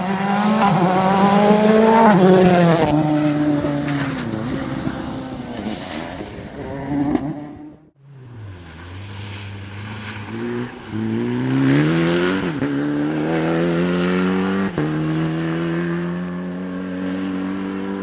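Rally cars driven flat out on a special stage. The first engine climbs in pitch, then drops back and holds steadier as the driver lifts. After a sudden cut about eight seconds in, a second rally car accelerates hard, its engine pitch rising through three upshifts, each marked by a brief dip.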